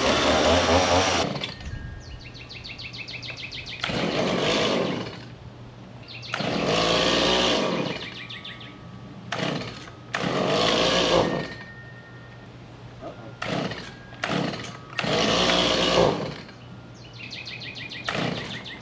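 Stihl MS 170 two-stroke chainsaw revved in repeated bursts of a second or two, dropping back to a rattly idle between them. Its chain is mounted backwards, so the saw runs but does not bite into the wood.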